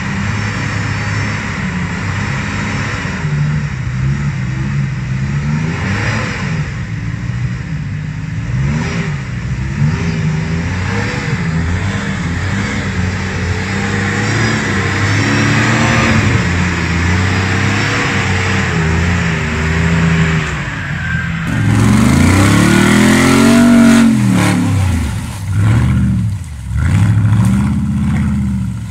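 Engine of a lifted off-road 4x4, a V6 Suzuki Vitara on big mud tyres, revving up and down under load as it churns slowly through deep mud. After an abrupt cut about two-thirds of the way in, a second 4x4's engine revs hard in several rising and falling sweeps as it fights through the mud.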